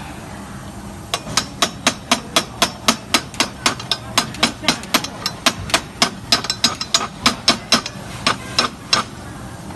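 A hammer striking metal in a quick, steady run of sharp blows, about four a second, starting about a second in and stopping near the end.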